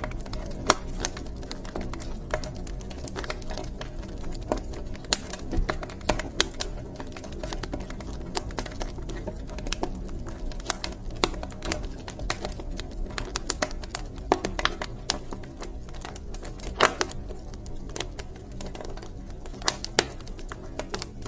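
Wood fire crackling in a fireplace: irregular sharp pops and snaps, a few louder ones standing out, over a steady low rumble of the flames.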